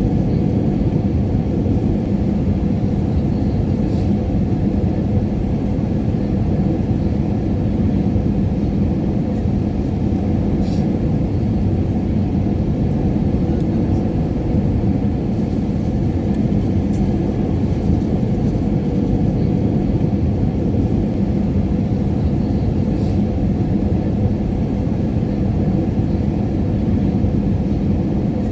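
Airliner cabin noise in flight: a steady, even low rumble of engines and rushing air with a faint constant hum, unchanging throughout.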